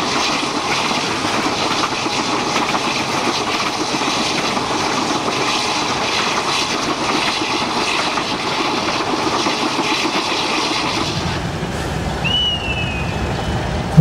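Passenger train running under way, heard from an open coach window behind a CP Alco diesel locomotive: a steady rumble and clatter of the wheels on the track. A brief, high, falling squeak sounds about twelve seconds in.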